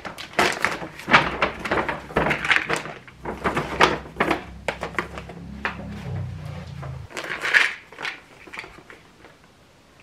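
Paper shopping bag and plastic packaging rustling and crinkling as they are handled, with light knocks of items set down on a table, in a quick run of sharp crinkles that thins out near the end.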